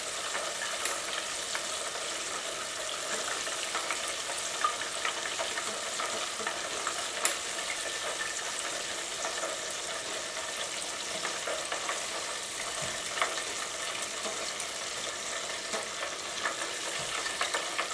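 Battered chicken wings deep-frying in hot oil in a stainless steel pot: a steady sizzle, with a few sharp clicks as metal tongs turn and lift the pieces.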